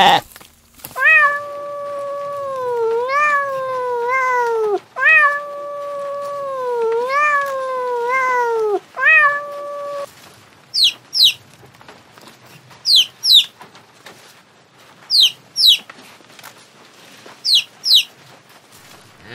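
Three long, wavering animal calls of several seconds each, followed by domestic chicks peeping. The peeps are short, high cheeps falling in pitch, coming in about four pairs.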